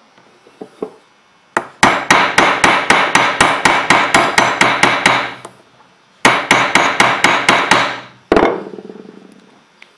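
Rapid hammer blows on the metal body of a spark plug clamped in a bench vise, about five a second, in two runs with a short pause, then one harder blow that rings out. The blows are shaking loose the cement that bonds the ceramic insulator to the metal body.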